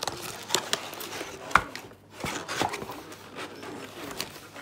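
Cardboard box and plastic air-cushion packaging being handled by hand: scattered crinkles, scrapes and a few light knocks.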